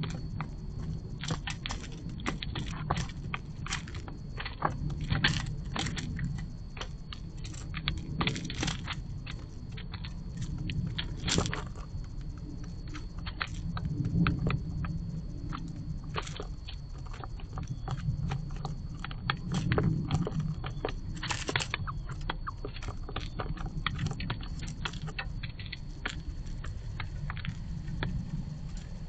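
Irregular sharp clicks and taps of northern cardinals cracking seeds and pecking in a cardboard box feeder, over a steady low rumble.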